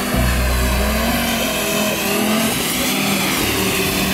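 Audi RS3's turbocharged 2.5-litre five-cylinder engine being driven hard, its revs rising and falling, with a brief dip just after the start.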